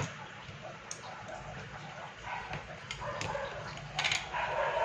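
A few light clicks and knocks from a small SMPS circuit board being handled and turned over on a workbench during desoldering, the loudest cluster about four seconds in.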